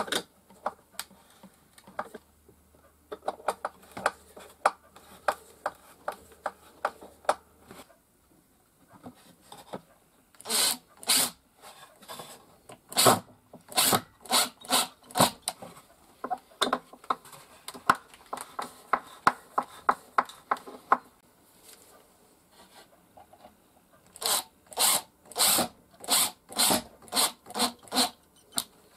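Makita cordless impact driver driving screws into wooden panels, run in short repeated bursts: a cluster around ten to sixteen seconds in and a quick run of about a dozen near the end. Before that, light clicks and taps of tools on the wood.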